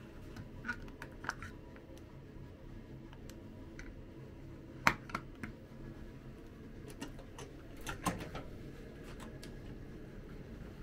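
Scattered light clicks and knocks of handling, the loudest about five seconds in and a cluster around eight seconds as a room door is unlatched and opened, over a low steady room hum.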